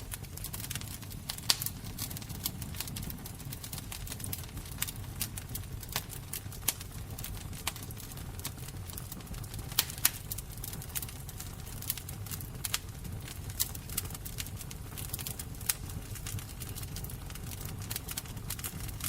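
A fire crackling: irregular sharp snaps and pops, a few louder ones about a second and a half in and around ten seconds in, over a steady low rumble of the flames.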